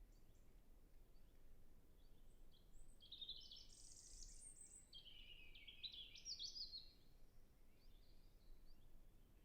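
European robin singing two faint, high song phrases of quick notes jumping up and down in pitch: one about three seconds in, then a second, lower one right after. Fainter, more distant bird notes come and go around them.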